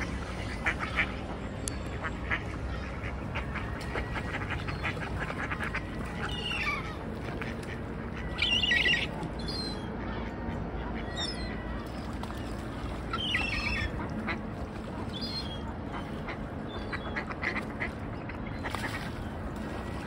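Ducks quacking in short bouts, half a dozen times, over a steady low background noise.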